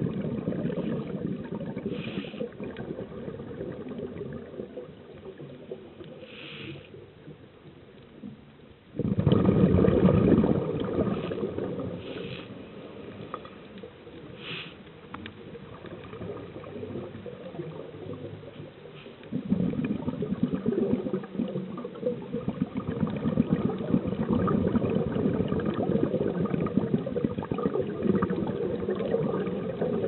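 Muffled underwater water noise heard through a camera's waterproof housing. It is a low rumble and gurgle that swells suddenly about nine seconds in, fades, then rises again a little before halfway and carries on.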